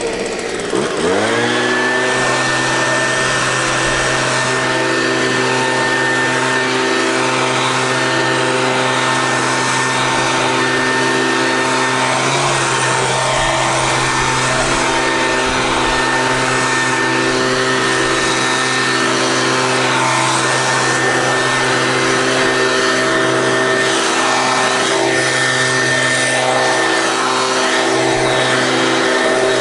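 Gas-powered handheld leaf blower throttled up about a second in, then running steadily at high speed while clearing a sidewalk, with a brief easing of the throttle partway through.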